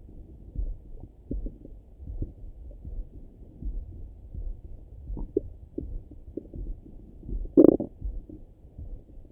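Abdominal sounds heard through a stethoscope: the heartbeat's low thumps, a little faster than one a second, under faint bubbling of the gut, with one loud short stomach gurgle near the end.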